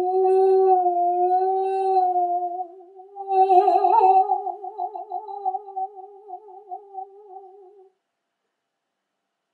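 A mezzo-soprano voice singing wordless long notes: one held note that swells slightly, then a second held note with a wide vibrato that stops suddenly about eight seconds in.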